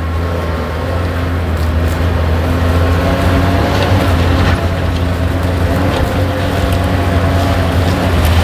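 Large diesel engine running steadily at a constant speed.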